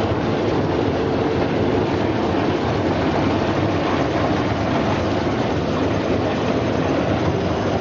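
Brush-roller vegetable washing and peeling machine running steadily, its rollers turning with a continuous mechanical rumble and hum.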